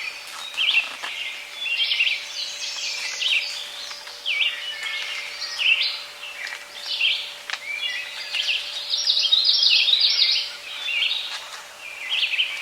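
Several songbirds singing at once in spring woodland, a busy chorus of overlapping short, repeated phrases and chirps.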